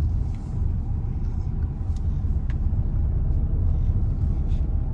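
Car driving: a steady low engine and road rumble, with a couple of faint ticks.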